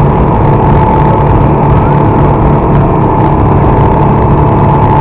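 Twin Honda 225 V6 four-stroke outboard motors running flat out on a speedboat: a steady, loud engine drone with a thin high whine over the rush of water and wind buffeting the microphone.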